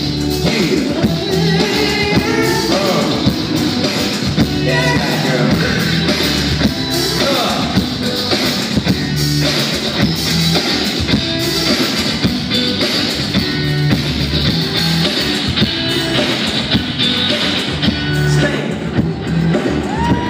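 Pop song backing track playing over a PA with a man singing live over it, a repeating bass line under the vocal.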